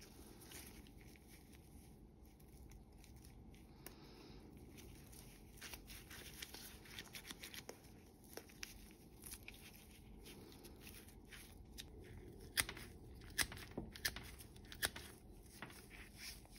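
Freshly sharpened Gardena bypass secateurs snipping a thin twig into short pieces: a run of sharp, crisp cuts, the loudest grouped about three-quarters of the way in, after a few lighter clicks of the blades being worked.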